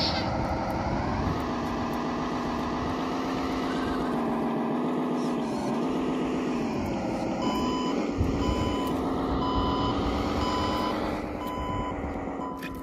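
Radio-controlled model dump truck driving with a steady engine drone. A bit past halfway, reversing beeps start, about one a second, as it backs up.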